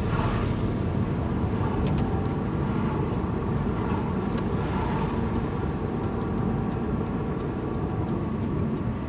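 Car driving at road speed, heard from inside the cabin: a steady low engine and tyre rumble, with a few faint clicks about two seconds in.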